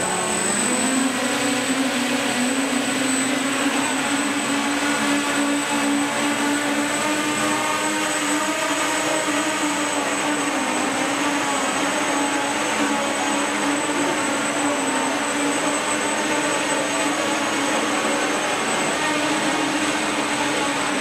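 Small multirotor drone's electric motors and propellers running with a steady buzzing hum, rising slightly in pitch in the first second, then holding with small wavers as it flies.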